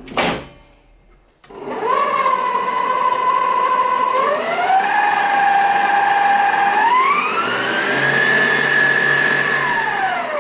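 Klarstein stand mixer's motor whining as it briefly stirs flour and milk into whipped egg batter, stepped up in speed twice so the whine rises in pitch each time, and starting to wind down at the very end. A short knock comes just before the motor starts.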